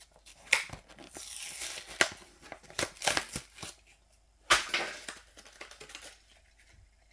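Diecast model car packaging being opened and handled: crinkling and tearing, with a string of sharp clicks and snaps.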